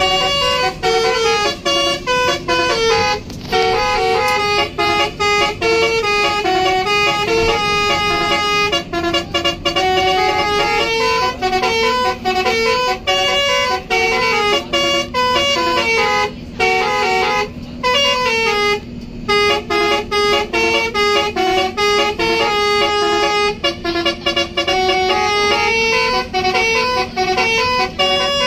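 Basuri telolet horn on a bus: a bank of air-horn trumpets playing a fast, stepping melody of several tones at once, loud and unbroken, with a couple of short pauses about two-thirds of the way through.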